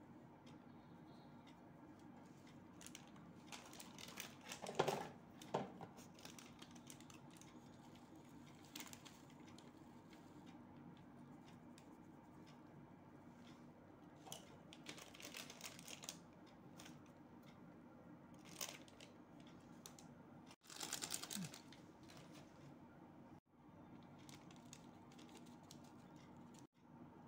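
Mostly quiet with a low steady hum. A few short spells of faint clicking and rustling come from spices being sprinkled over dry puffed rice in a steel bowl, the loudest about five seconds in and another near twenty-one seconds.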